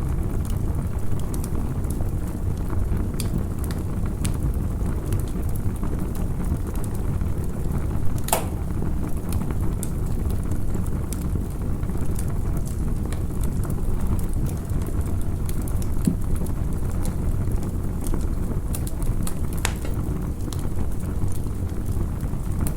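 Campfire crackling: scattered sharp pops and snaps of burning wood over a steady low rumble, with one louder pop about eight seconds in.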